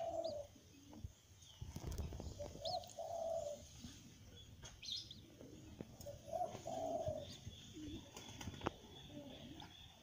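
A dove cooing in the background: a short low coo phrase twice, about four seconds apart. Brief faint high chirps of a small bird and a few soft knocks come in between.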